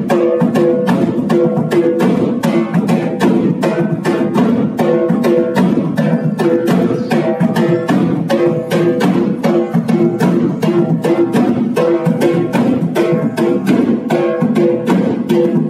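Instrumental music: plucked and bowed strings over a fast, steady beat.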